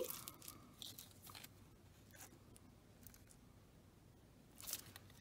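Faint handling noise: light clicks and rustles of a beaded charm bracelet and its paper price tag being turned over in the hands, with a slightly louder rustle near the end.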